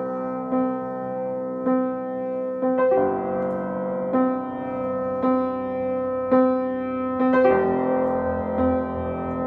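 Upright piano played slowly, single notes struck about once a second over ringing, sustained tones, improvising on the notes of the C minor, F minor and G major chords. Deeper bass notes join about three-quarters of the way through.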